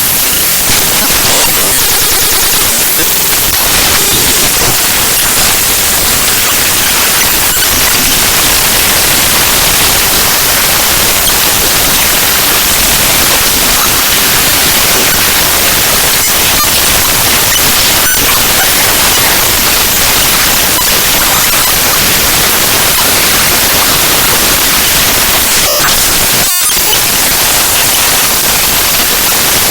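Raw bytes of the ffmpeg.exe program file played back as audio: loud, harsh static with a dense crackle, steady throughout, with one brief dropout near the end.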